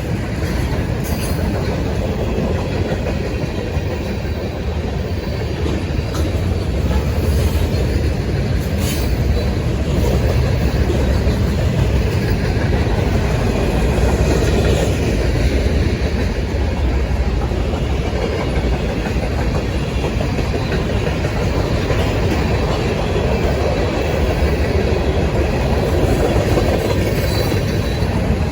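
A train rolling past, its wheels clattering over the rails in a steady rumble.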